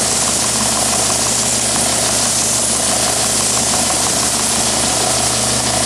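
Oscillating belt sander running, its motor humming steadily under the even hiss of the abrasive belt as a workpiece is held against it and kept moving.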